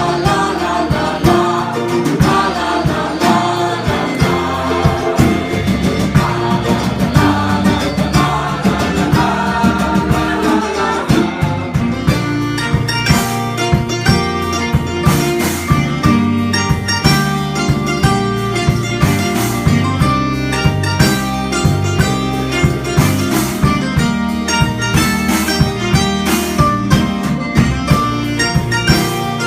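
Live band playing a bluegrass-style song: voices singing over guitar for about the first third, then an instrumental passage with plucked strings and a steady drum beat.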